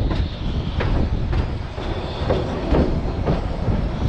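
Narrow-gauge passenger train cars rolling across a trestle: a steady rumble of wheels on rail with irregular clicks and knocks from the rail joints. A faint high wheel squeal comes twice, near the start and about two seconds in.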